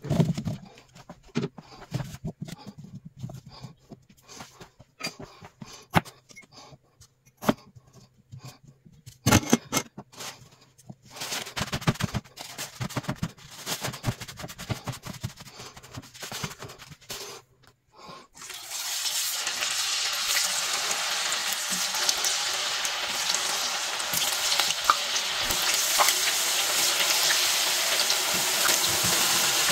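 Crinkle-cut potato chips tipped from a plastic colander onto paper towels and patted dry: scattered soft knocks and paper-towel rustling. About 18 seconds in, the chips are frying in hot oil, a loud steady sizzle with crackles.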